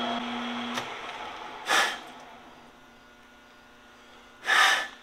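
Metal lathe running with a steady hum while single-point threading a stainless shaft, shutting off with a click under a second in and winding down. Two short hissing bursts follow, about two and four and a half seconds in.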